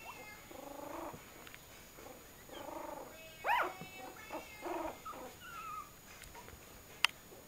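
Two-week-old pug puppies cooing and squeaking: a series of short, pitched calls, the loudest a rising-then-falling call about three and a half seconds in. A single sharp click near the end.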